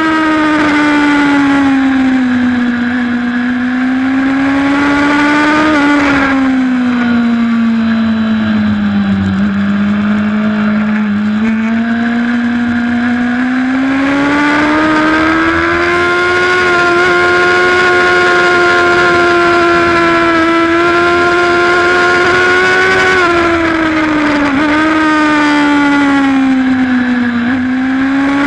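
Superbike engine heard on-board at racing pace, its revs rising and falling through corners. There are quick pitch changes at gear shifts about six seconds in and again near the end, and a long stretch of steady high revs in the middle.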